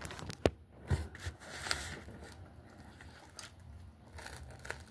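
Scattered clicks and rustles from a phone camera being handled close to the microphone, louder in the first two seconds. Near the end comes a bite into a toasted Reuben sandwich, with a few sharp clicks as the crust gives.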